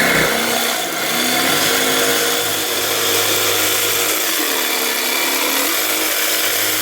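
Jigsaw running steadily as it cuts a tight curve in a wooden board; its motor pitch wavers a little past the middle.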